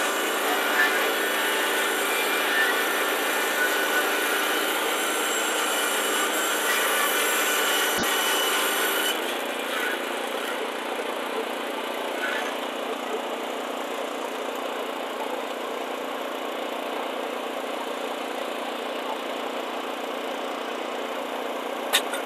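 Wood-Mizer board edger running and ripping a board, a steady machine sound with whining tones. About nine seconds in it drops and eases as the cut ends, and the edger runs on unloaded. One sharp knock near the end.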